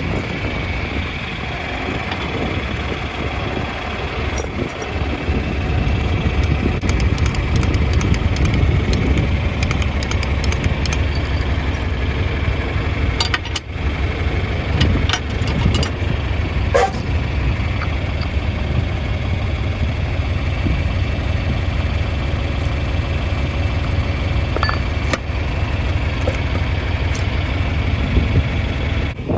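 Vintage John Deere tractor engine running steadily with a low rumble, with a few sharp clicks and knocks about halfway through.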